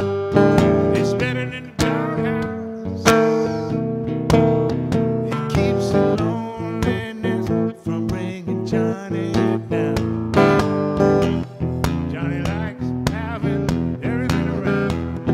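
Steel-string acoustic guitar played live in a blues, strummed chords with sharp strikes on the strings in a steady rhythm.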